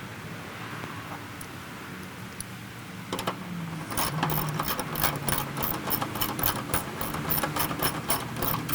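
Steady metallic clicking, about four clicks a second, starting about four seconds in, from a hand tool running 7 mm nylock nuts down onto the tailgate lock's threaded studs.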